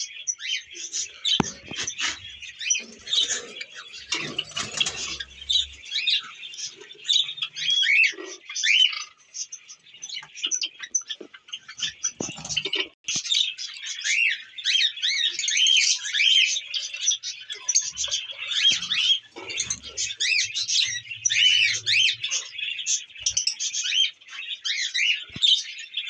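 Caged lovebirds and cockatiels chirping and squawking without a break, many high-pitched calls overlapping, with a few low knocks now and then.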